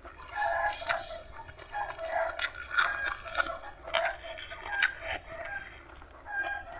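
Crunchy chewing and biting of food such as raw vegetables, in irregular crackles. Chickens clucking nearby in short repeated calls.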